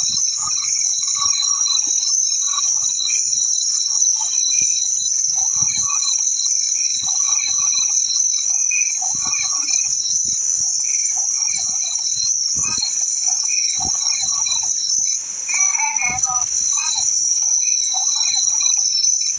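A steady, unbroken high-pitched insect chorus, with fainter irregular lower sounds beneath it.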